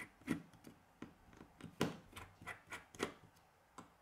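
Precision Phillips screwdriver turning and tapping in the tiny screws of a phone's back cover: a string of small, irregular clicks, a few of them louder.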